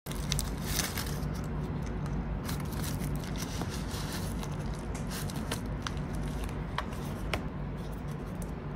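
Crinkling and rustling of a yellow padded mailer being pulled open, and a card-wrapped parcel slid out of it, with many sharp crackles.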